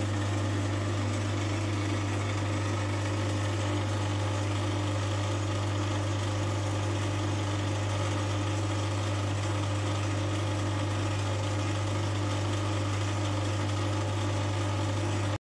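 Oil-burner ignition transformer humming steadily while it powers the glow discharge in a homemade CO2 laser tube, a deep electrical hum with overtones. It cuts off suddenly near the end.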